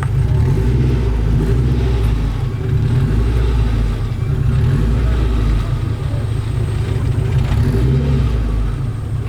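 A car's engine running through its exhaust: a low rumble that swells and eases a few times, as at idle with light revs.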